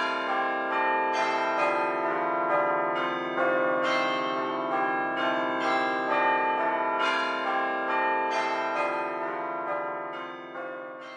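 Church bells ringing a peal, many overlapping bell tones struck about twice a second and fading out near the end.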